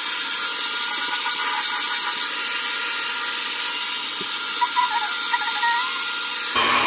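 Handheld hair dryer running steadily on the glued-down lace of a lace-front wig to set the glue, then switching off near the end.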